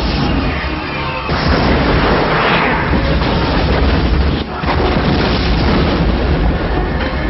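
Film sound effects of meteor strikes: loud, continuous explosions and crashing debris over music, with abrupt shifts about a second in and again about four and a half seconds in.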